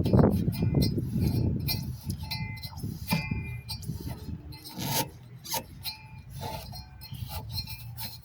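Rubbing and scraping that fades after about two seconds, then scattered light metallic clinks and knocks, as of parts and tools being handled.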